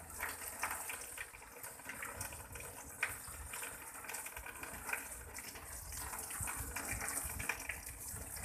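Water running and splashing, with a few short knocks along the way.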